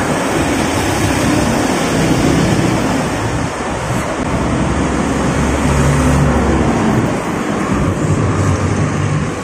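Steady background rumble of motor traffic under a constant hiss, with the low rumble rising and falling.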